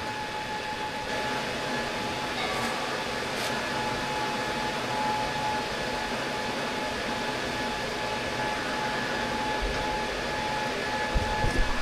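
Steady hum and hiss of running shop equipment with a constant whine. A few low knocks near the end as the camera is picked up.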